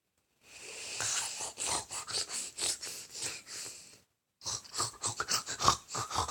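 Snoring: after a short silence, one long raspy breath with a rapid fluttering rattle for about three and a half seconds, a brief pause, then another rattling breath.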